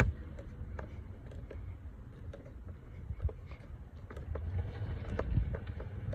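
Scattered light clicks and ticks as a screw is turned down into a plastic air box housing, over a low steady rumble.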